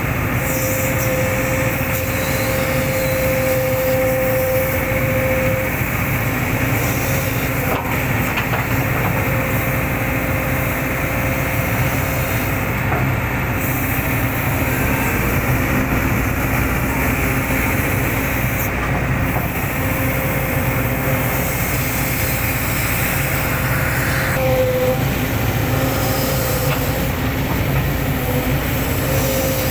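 Hitachi excavator running steadily while it digs, its diesel engine and machinery making a constant noise with a high whine that fades in and out.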